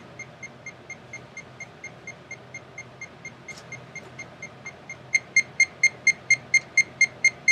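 Proximity beeps from a wall-detection program: a short high-pitched electronic tone repeating about four times a second. The beeps are soft at first and turn much louder about five seconds in, the signal that the depth camera is now within half a metre of a wall.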